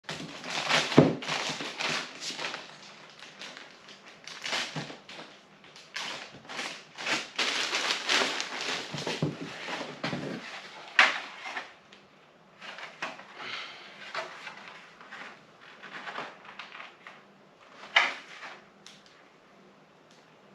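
Packaging rustling and crinkling with scattered knocks and clicks as a fiberglass front lip is handled. The noise is busy for the first dozen seconds, then thins to a few single knocks, with a sharp one about 11 seconds in and another near the end.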